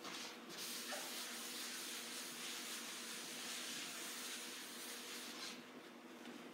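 A whiteboard eraser wiping marker ink off a whiteboard, a steady rubbing hiss that starts about half a second in and stops about a second before the end.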